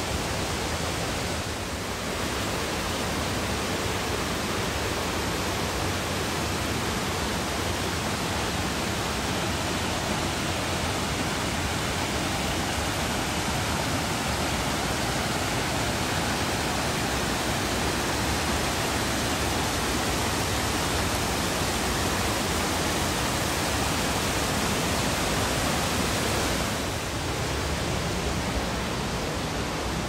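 Mountain stream rushing over bedrock in cascades: a dense, steady rush of water that drops a little in level near the end.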